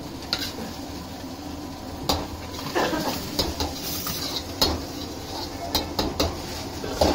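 Steel utensils clinking and knocking as a metal spoon works over plates and a stainless-steel pot, in scattered irregular clinks about every half second to a second. A steady low hiss runs underneath.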